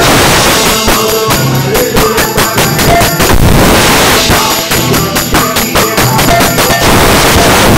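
Acoustic drum kit played live, very loud, with fast, dense hits on drums and cymbals over a backing track with held bass and synth notes. A wash of cymbals comes about three seconds in and again near the end.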